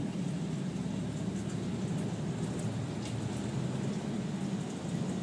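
Aquarium filter running, a steady low rush and bubbling of circulating water.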